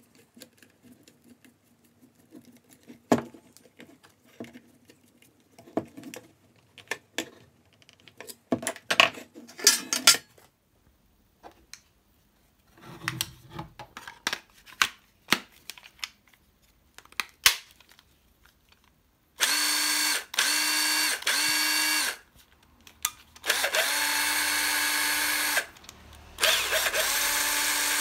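Makita 6222D 9.6 V cordless driver drill's motor and gearbox running at a steady pitch in bursts: three quick pulses, then two longer runs, a test run after servicing. Before that come scattered clicks and knocks of the drill and its chuck being handled.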